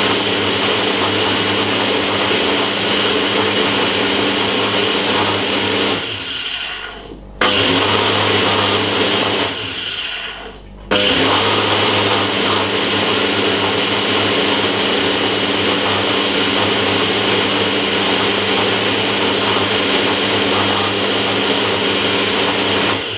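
Ninja blender motor running at full speed, blending pineapple chunks with water. It winds down and starts up again twice, around six and ten seconds in, and stops near the end.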